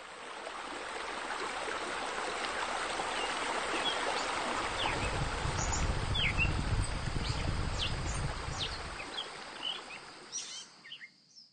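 Ambience of steadily running water with birds chirping. The water fades in at the start, and the chirps come more often in the second half.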